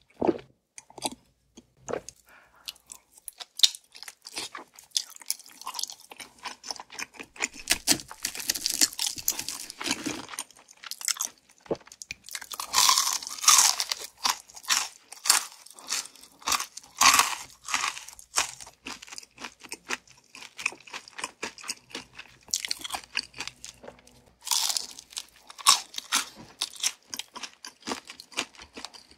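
Close-miked chewing and crunching of crispy fried chicken, a steady crackle of chewing with louder crunchy bites every few seconds.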